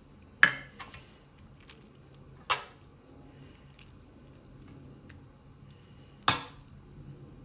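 Three sharp clinks, each with a short ring, as metal kitchen utensils knock against a ceramic baking dish. Faint handling of food comes between them.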